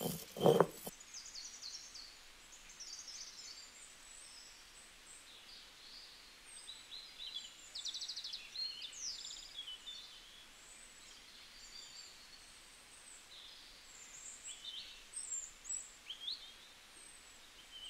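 A stone roller grinding chutney paste on a flat stone grinding slab makes its last heavy rubbing strokes in the first second. After that, birds chirp and trill on and off, with short high calls, quick glides and one rapid trill.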